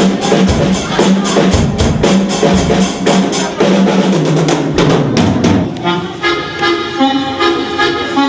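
Background music with a steady drum beat; about six seconds in the drums drop away and sustained melodic notes take over.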